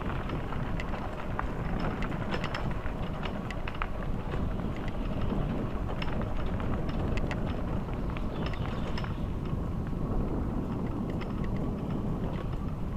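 Bicycle being ridden, with wind rushing over the microphone as a steady low rumble and many short clicks and rattles scattered throughout.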